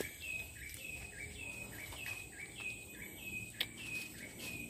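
Rhythmic chirping: short chirps that fall slightly in pitch, about four a second, alternating between a higher and a lower note, over a faint steady high whine. A single sharp click about three and a half seconds in.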